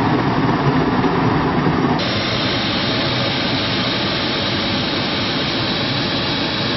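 Hot-air balloon's propane burner firing: a loud, steady rushing noise that turns thinner and hissier about two seconds in.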